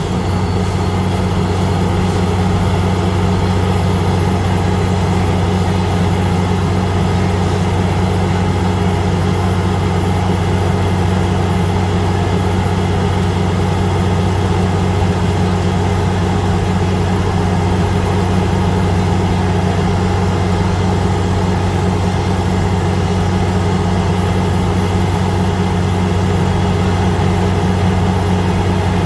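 Heavy diesel engine of a construction machine running steadily at constant speed, with a deep even drone that does not change.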